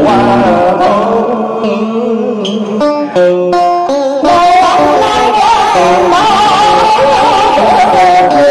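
Cải lương song with plucked-string backing music. A sung vocal line wavers over the accompaniment, broken by a short run of separate plucked notes about three seconds in. A woman's voice then carries the melody from about four seconds in.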